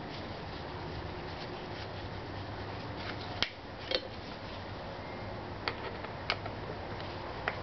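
Scattered sharp clicks and taps of a Phillips screwdriver working the screws on a scooter air filter's plastic frame, about five of them in the second half, over a steady low background hum.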